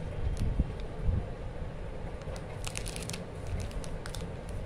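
Plastic chocolate packaging crinkling in the hands: a run of quick crackles in the middle, over a steady low rumble.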